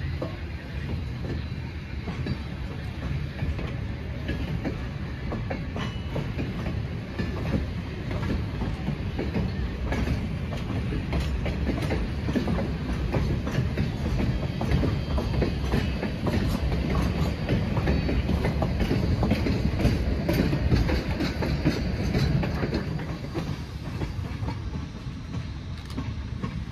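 Train of wooden passenger coaches and a steam locomotive rolling slowly past on the rails, wheels clicking over the rail joints over a steady rumble. The sound grows louder as the locomotive goes by and falls away near the end as the train moves off.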